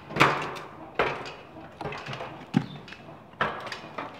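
Sharp knocks and clatters, about one a second, from PVC drain pipe fittings being handled and set down on a concrete floor.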